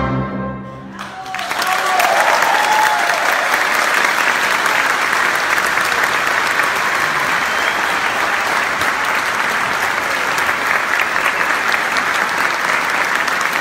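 The symphony orchestra's final chord fades out in the first second, then a large audience breaks into applause that keeps up steadily until it cuts off at the end.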